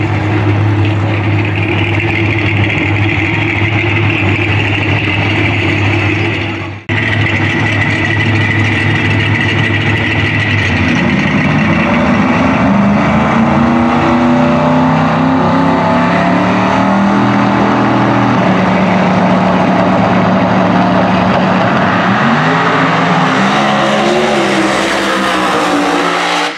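Big-tire no-prep drag cars' engines running loudly at the starting line: first a steady low idle, then, after a short break about seven seconds in, two engines revving with wavering, rising and falling pitch as they stage. Near the end they swell into a louder, brighter run as the cars launch down the strip.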